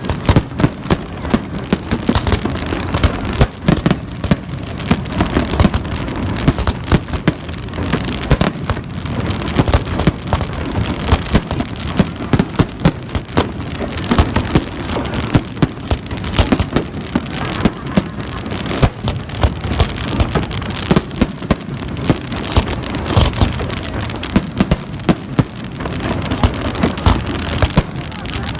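Fireworks display: a dense, continuous barrage of sharp bangs over a steady crackling hiss.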